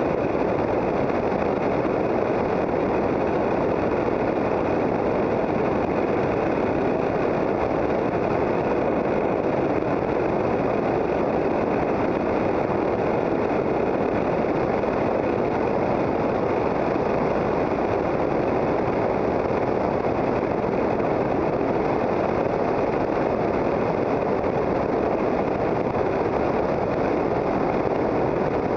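Lightwing GR-912 light aircraft's Rotax 912 engine and propeller running steadily, heard from a camera mounted on the aircraft as an even, unchanging rush of engine and air noise.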